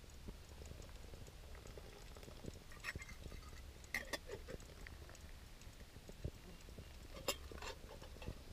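Camp cookware being handled: faint clicks and scrapes, with a few sharper clinks about three, four and seven seconds in.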